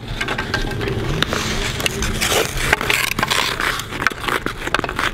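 Ice skate blades scraping and carving across outdoor ice, with repeated sharp clacks of hockey sticks hitting the puck and the ice.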